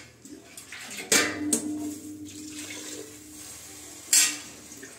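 Water tipped from a metal tumbler into a pressure cooker of biryani masala, splashing in short bursts twice: about a second in and again about four seconds in.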